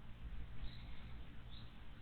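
Two faint, very short high bird chirps, about a second apart, over a steady low background rumble.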